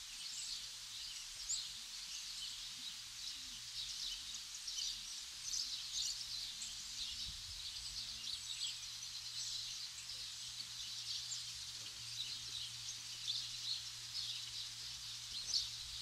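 Many small songbirds chirping and twittering together, a busy chorus of short, high, overlapping calls that never lets up.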